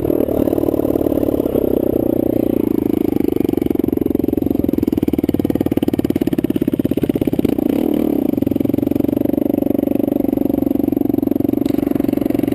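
Kawasaki KFX450R quad's single-cylinder four-stroke engine running at fairly steady revs, a dense even pulsing note with only slight rises and dips in pitch.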